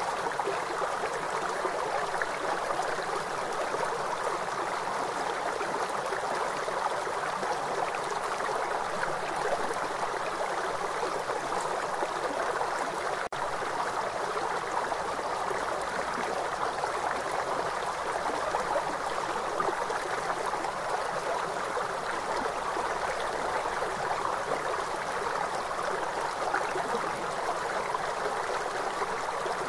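River water flowing, a steady even rushing, broken once by a momentary dropout a little under halfway through.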